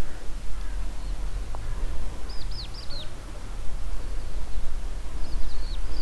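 Wind rumbling on the microphone, with a small bird giving quick runs of short, falling high chirps about two seconds in and again near the end.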